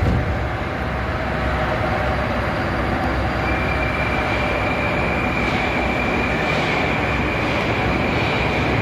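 Ezh-3 metro train standing at the platform, its equipment giving a steady hum, with a thin high steady whine joining about three and a half seconds in.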